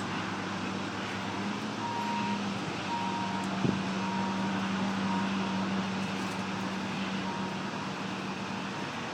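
John Deere backhoe's diesel engine running steadily, with one sharp knock a little under four seconds in.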